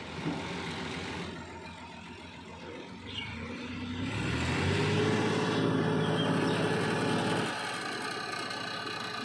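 Massey Ferguson tractor's diesel engine pulling a heavily loaded soil trolley. It revs up about three seconds in, runs hard under the load, then eases back to a lower, steadier run near the end.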